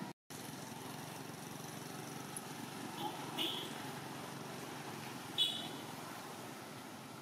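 Steady outdoor background noise with three short, high-pitched chirps: two close together about three seconds in, and a louder one about five and a half seconds in.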